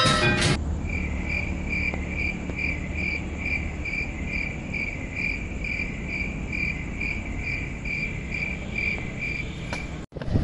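Cricket chirping at night: short, even, high-pitched chirps, about three a second, over a low background hum.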